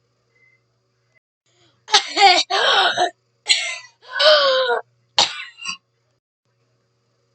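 A person coughing and clearing their throat: four loud, hacking bouts in quick succession, starting about two seconds in.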